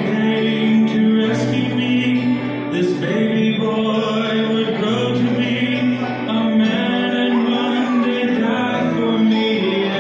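A song playing: sung vocals held over instrumental backing, loud and steady.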